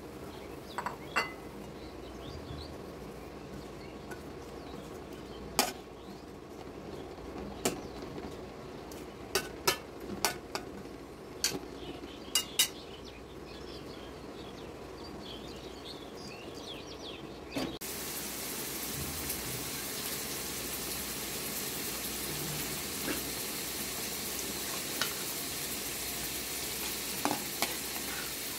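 Sharp clicks of a metal spatula and plate knocking against a metal pan, scattered through the first part. About two-thirds of the way in, a steady sizzling hiss starts abruptly as taro stolons (kochur loti) cook in spiced oil gravy.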